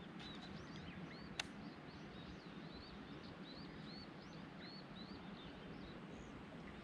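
A bird singing a long series of short, quick chirps, about two a second, faint over steady outdoor ambience. One sharp click sounds about a second and a half in.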